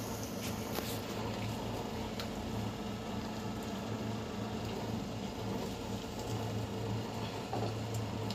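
Marinated chicken pieces sizzling as they are laid into hot mustard oil and butter in a stovetop oven pan, with a few soft clicks and a steady low hum underneath.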